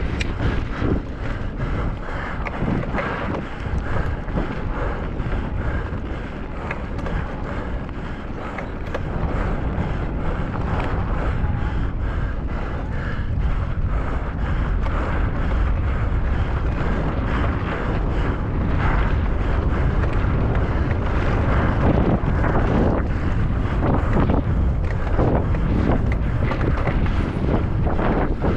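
Wind rushing over the microphone of a mountain bike descending at race speed, with a constant rattle and clatter of the bike over rough ground.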